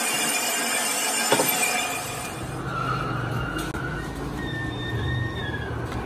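Brake drum workshop noise: a high-pitched machine whine with a metal clank about a second in. After the whine drops away about two seconds in, a low steady hum remains, with knocks of cast-iron brake drums being handled.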